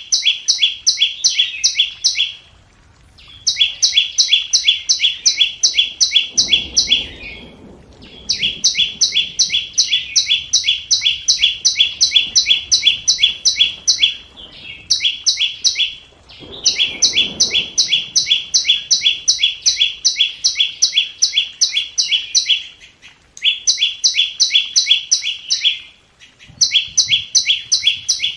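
Flowerpecker calling: rapid runs of sharp, high ticking notes, about ten a second, repeated in bouts of a few seconds with short pauses between. This is a lure call recording used to draw in wild birds for trapping.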